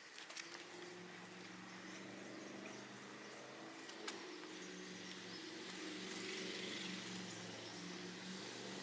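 A steady low motor hum over a background hiss, with a single sharp click about four seconds in.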